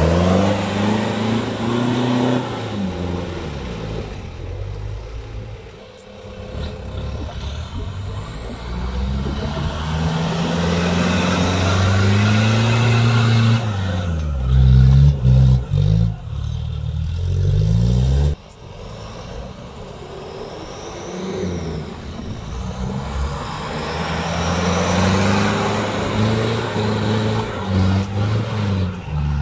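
Off-road 4x4 engine revving, its pitch rising and falling again and again, with a sudden drop in level about two-thirds of the way through.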